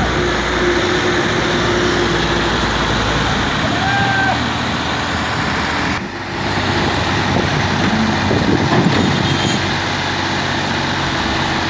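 Massey Ferguson 240 tractor's diesel engine running hard under load as the tractor tries to haul a fully loaded water tanker out of mud.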